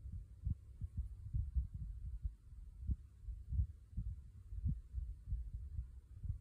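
Wind buffeting the microphone, an irregular low rumble of gusts and thumps.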